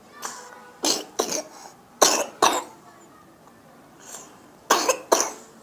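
A child coughing: three pairs of short coughs, the cough of a child with phlegm.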